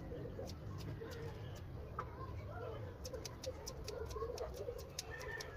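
Grooming scissors snipping through a dog's coat: scattered sharp snips at first, then a quick run of them from about three seconds in.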